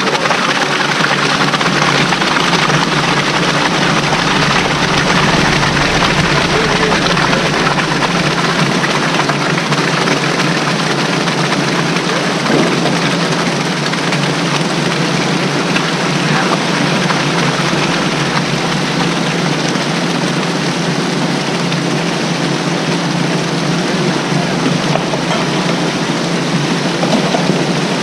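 Quadcopter drone's propellers running in a steady hover, a loud even whir with a low hum that holds steady throughout.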